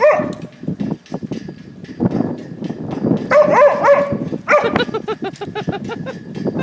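A dog barking and yipping in short, high-pitched bursts: one at the start, then two quick bouts in the middle, the second a rapid string of yips.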